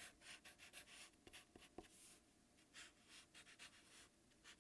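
Sharpie marker drawing on paper: faint, short scratchy strokes, one after another with brief pauses, as lines and symbols of a circuit diagram are drawn.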